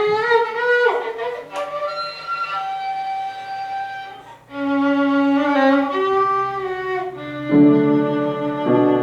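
Violin playing a slow, singing melody with long held notes and an upward slide near the start. The sound dips briefly a little past the middle, then returns fuller, with lower sustained notes near the end.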